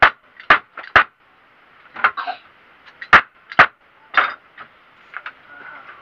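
Sharp, irregular knocks on a wooden bed frame under repair, about a dozen in six seconds, with the loudest pair about three seconds in.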